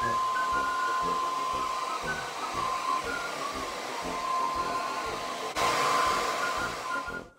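Compact handheld hair dryer blowing steadily, with a thin motor whine over the rush of air. It gets louder about five and a half seconds in, then cuts off abruptly near the end.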